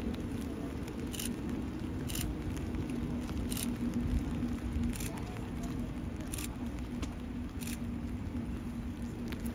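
A train rolling slowly past: a steady low rumble and hum, with a sharp click about every second and a half.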